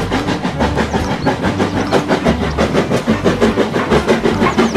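Steam locomotive running with a train of coaches: a steady rhythmic chuffing and clatter of wheels on rail.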